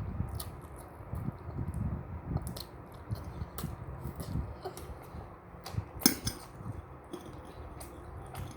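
Eating spicy instant noodles: chewing noises with scattered light clicks of a utensil against the bowl, one louder clink about six seconds in.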